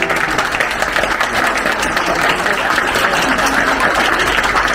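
Crowd of guests applauding: steady clapping from many hands.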